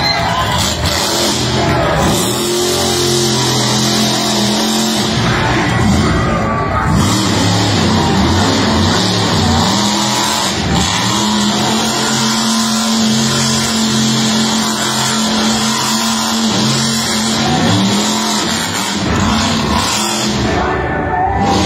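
Loud rock music with electric guitar, and a monster truck's engine running underneath.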